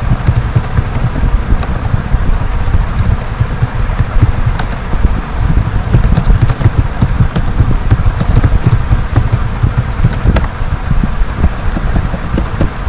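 Computer keyboard keys clicking in irregular runs as text is typed, over a loud, steady low rumble of noise on the microphone.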